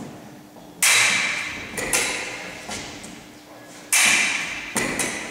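Foil fencing lesson sounds: two loud sharp strikes about three seconds apart, each followed by a quieter one, ringing and echoing in a large hall. They are foil blade contact and foot stamps on a wooden floor.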